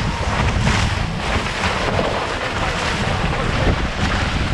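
Wind buffeting the microphone over water rushing and spraying off the hull of a Hobie 18 catamaran sailing fast, with repeated hissing surges of spray.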